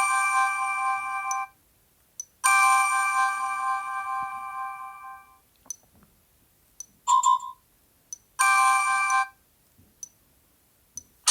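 Sony Xperia notification tones playing from the phone's speaker one after another: a bell-like chime of several steady notes sounds three times, once ringing on and fading over about three seconds, with a short higher blip between. Small clicks come between the tones, and a different, busier tone starts at the very end.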